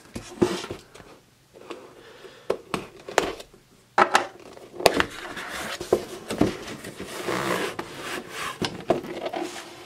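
Cardboard shipping box handled and opened on a wooden desk: several knocks as it is turned over and set down, then cardboard scraping and rubbing as the flaps are pulled open.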